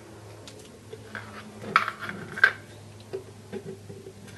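Light clicks and taps of craft supplies being handled as acrylic paint is got out, with two sharper clicks a little under two seconds in and about two and a half seconds in.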